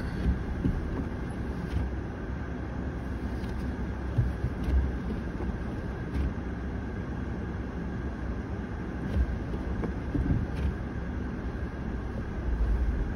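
Cabin noise of a hybrid car easing to a stop and sitting still on a snowy road: a steady low rumble with a faint steady hum and a few light, irregular knocks.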